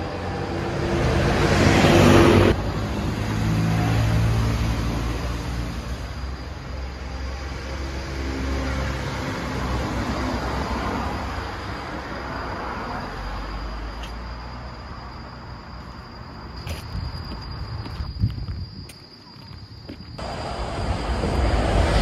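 Cars passing on a road, their tyre and engine noise swelling and fading one after another; the first pass cuts off abruptly about two seconds in. A faint steady high tone runs underneath.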